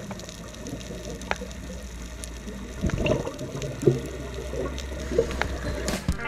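Scuba regulator exhaust bubbles gurgling underwater, heard muffled through a camera housing over a steady low rumble, with louder bubbling surges about three seconds in and again near the end.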